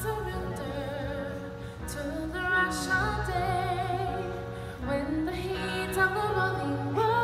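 Live stage-show song: a vocalist sings long, sliding phrases with vibrato over steady, sustained bass notes.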